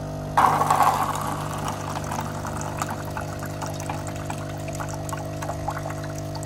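Water gushing from a water dispenser's tap into a paper cup, starting suddenly about half a second in, loudest at first and then running on more steadily with small splashing clicks.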